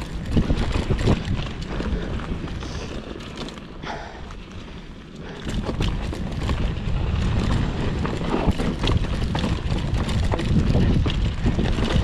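Mountain bike riding down a rocky dirt trail: tyres rumbling over dirt and stones, with frequent sharp clattering knocks from the bike. It goes quieter for a moment about four seconds in, then louder again.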